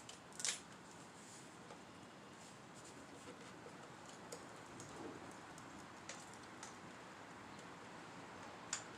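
A few faint clicks and light handling noise from pliers tightening the speedometer cable's top fitting through a piece of rubber, over a low steady hiss; the sharpest click comes about half a second in.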